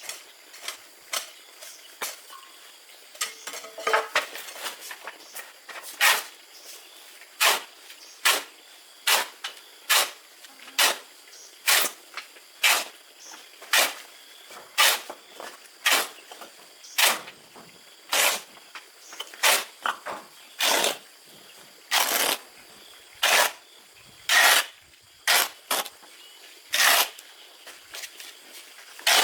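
Repeated short scraping strokes of a hand tool working a gritty material, about one a second, louder in the second half.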